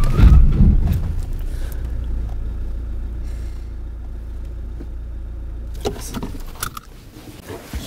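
Car interior road and engine rumble while driving, with a heavy low thump at the start. The rumble dies away about six and a half seconds in, followed by a few sharp clicks.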